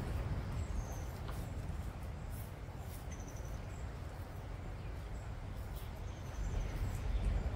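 Aldabra giant tortoises biting and tearing freshly cut grass, heard as scattered crisp clicks, while a small bird gives a short high trill three times. A steady low rumble runs underneath.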